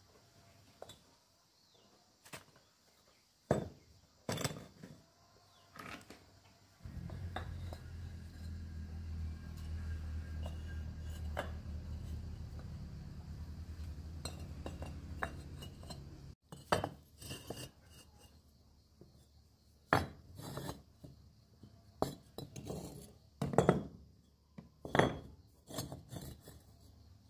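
Dishes and utensils being handled, with scattered clinks and knocks. A steady low hum sets in about a quarter of the way through and cuts off suddenly just past the middle.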